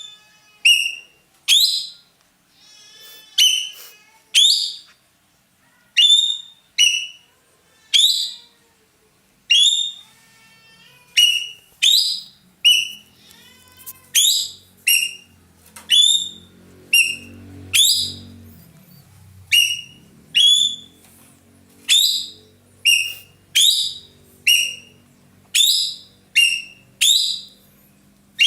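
Ekek keling bird calling at full volume: a long run of short, sharp whistled notes, about one a second and sometimes in quick pairs, each swooping quickly in pitch. This is the loud 'shooting' call that keepers prize in a bird in full song.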